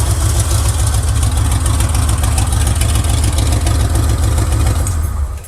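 1979 Chevy pickup's engine idling with a misfire, then cutting off near the end.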